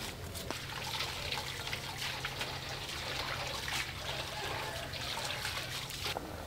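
Water running and splashing, which stops suddenly about six seconds in.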